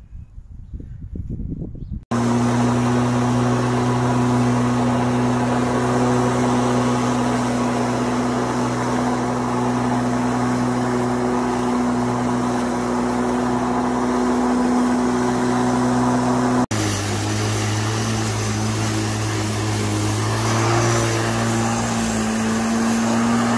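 Swift 40V brushless cordless lawn mower running with a steady electric hum while cutting grass. The hum starts abruptly about two seconds in after quieter rustling, breaks off for an instant near the end, then resumes with its pitch shifting slightly.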